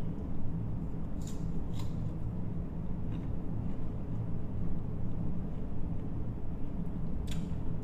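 Close-up eating sounds from crisp, unripe green mango: a few short crisp crunches and clicks, about four in all, as slices are chewed and picked from a plastic container, over a steady low hum.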